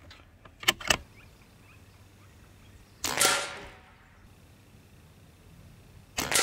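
Crosman ICON PCP air rifle firing .22 pellets: two quick clicks about a second in, then a shot a little after three seconds and another right at the end, about three seconds apart.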